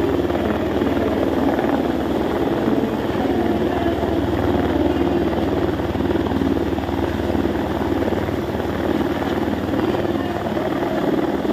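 Helicopter hovering low overhead, its rotor beating in a steady, loud, fast pulse.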